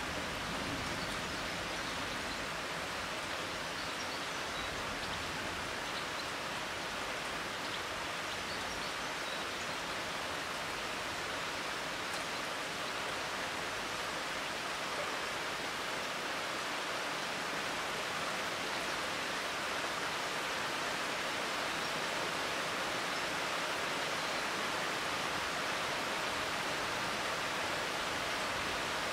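Steady summer rain falling on leafy trees, an even, constant hiss.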